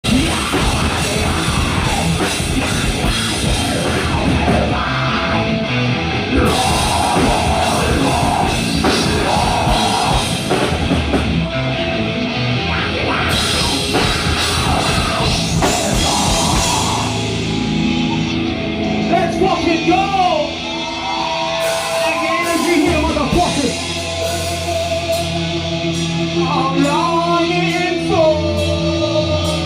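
Heavy metal band playing live, with distorted guitars and drum kit at full tilt. From about eighteen seconds in, the full band drops back and a lead guitar bends notes over held low chords.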